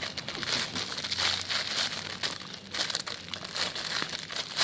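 Plastic crinkling and rustling in irregular bursts as a squishy toy is handled.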